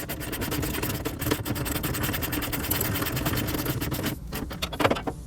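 Socket ratchet clicking rapidly as a bolt is run in, for about four seconds, then a few slower clicks near the end.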